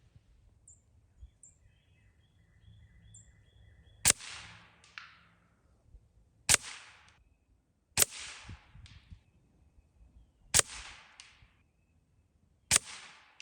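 Gamo Whisper Swarm Mach 1 .22 break-barrel air rifle fired five times, about two seconds apart. Each shot is a sharp crack with a short fading tail.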